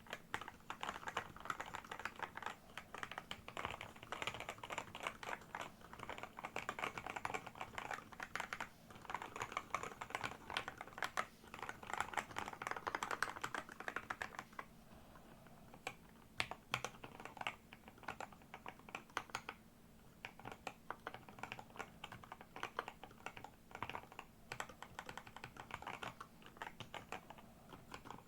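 Fast typing on a Redox split keyboard with lubed Gateron G Pro Red 45 gf linear switches and XDA-profile keycaps: a dense run of keystrokes that thins out briefly about halfway through, then picks up again.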